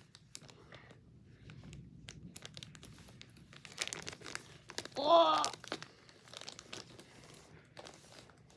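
Packaging of spare keycaps crinkling and rustling, with small clicks and scrapes, as it is prised at with tweezers. About five seconds in there is a brief groan of effort, the loudest sound here.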